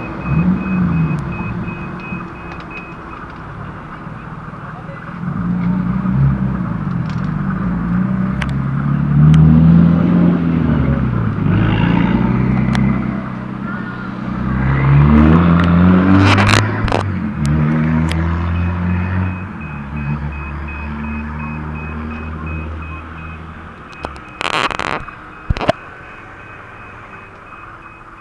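Level-crossing warning bell ringing as a JR Freight DE10 diesel-hydraulic locomotive passes, its V12 diesel engine running under power with its pitch rising and falling. The unpowered new coaches behind it then roll by with a low rumble and a few sharp clacks from the wheels on the rails, while the bell rings on.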